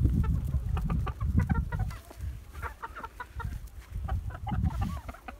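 A flock of hens clucking in many short, overlapping notes as they feed on chopped tomatoes, over a low rumble.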